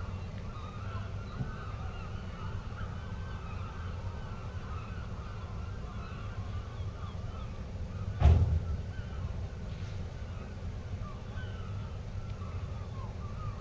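A steady low rumble with many faint, short chirping squeaks throughout, and one heavy thud a little past the middle: a person's step landing on a moored fishing boat.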